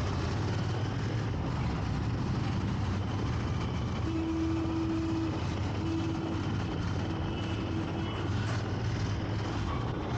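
Motorcycle engine running steadily under the rider in city traffic, with surrounding traffic noise. A faint steady tone sounds briefly, on and off, in the middle.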